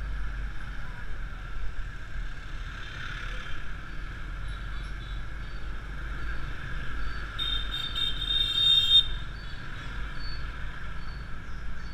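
Steady traffic and riding noise heard from a helmet camera on a moving motor scooter, with low wind rumble on the microphone. About seven and a half seconds in, a vehicle horn sounds steadily for about a second and a half, the loudest sound here.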